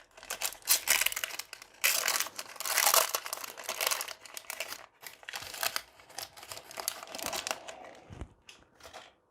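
Frosted see-through plastic wrapping on a pack of basic land cards crinkling as it is handled and torn open, in dense bursts that thin out to a few light clicks near the end.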